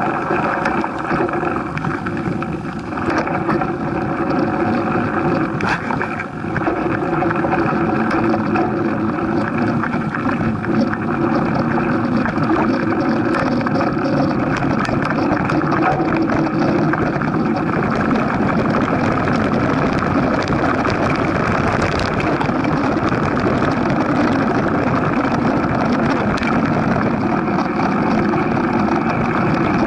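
Steady rumbling noise of a mountain bike ride on a dirt trail: wind on the bike-mounted camera's microphone mixed with tyre and frame rattle, with a few brief knocks from bumps.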